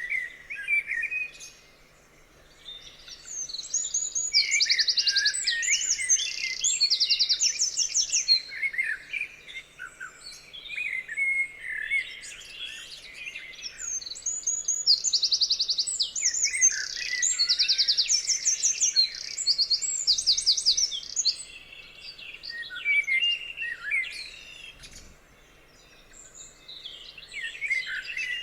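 Several songbirds singing and calling over one another, fast high trills mixed with lower chirps, in two busy spells with quieter moments between.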